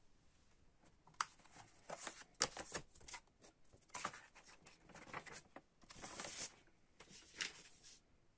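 A paper record inner sleeve and a cardboard gatefold LP jacket being handled. There is a sharp click about a second in, then several spells of rustling and sliding paper as a record in its paper sleeve is pulled from the jacket.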